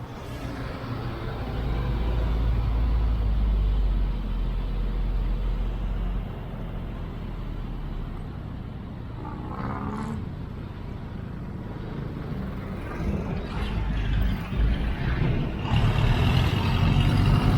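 Road traffic heard from a moving motor scooter, with heavy wind rumble on the microphone for the first few seconds. A brief pitched sound comes just before the middle, and louder noise from a nearby heavy vehicle comes near the end.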